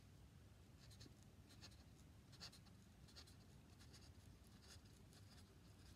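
Felt-tip marker drawing short zigzag strokes on paper, heard as a faint, irregular series of scratchy squeaks.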